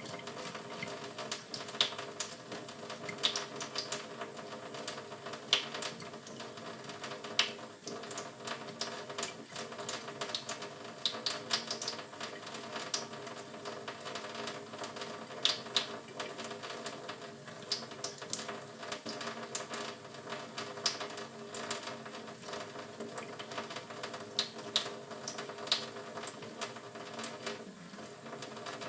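Canary bathing in water in a sink, flicking and splashing with its wings and making rapid, irregular little splashes and clicks over a steady low hum.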